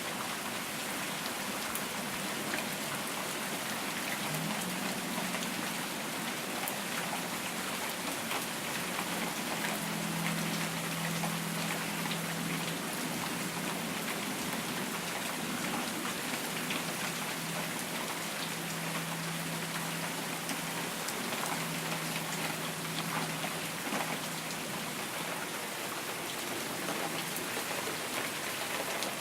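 Steady rain falling and pattering on a surface, with many individual drop hits. A faint low hum comes and goes underneath for much of the stretch.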